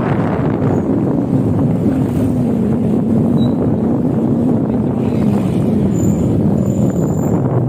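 Motorcycle engine running under way, its note wavering slightly, with wind rushing over the microphone.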